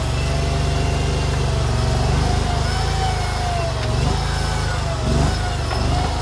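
JQ400 mini skid steer's engine running steadily under work, with a thin whine that wavers up and down in pitch and brief changes in load about four and five seconds in.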